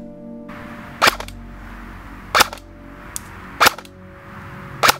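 King Arms VSS airsoft electric gun, running on a 7.4 V Li-Po battery, firing single shots into a chronograph. There are four sharp shots, about one every 1.2 seconds.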